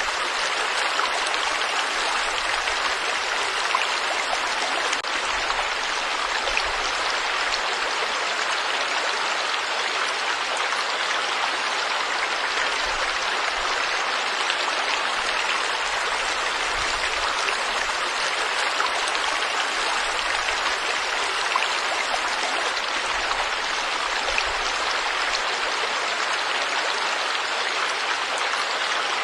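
Forest stream or small river flowing over rocks: a steady, even rushing of water.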